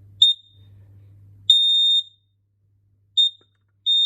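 Built-in sounder of an interlinked home alarm beeping while its test button is held down for a factory reset: four high-pitched beeps on one tone, alternating short and about half a second long.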